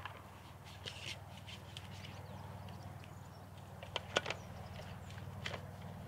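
Gear being handled by hand: rustling with scattered sharp clicks and knocks, the loudest a pair of clicks about four seconds in, over a steady low rumble.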